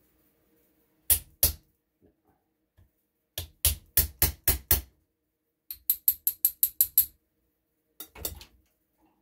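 Small hammer striking a pin punch to drive a trigger-assembly pin out of an air rifle's action, metal on metal. It gives two taps, then a run of about six at roughly four a second, then a quicker run of about eight, and two more near the end.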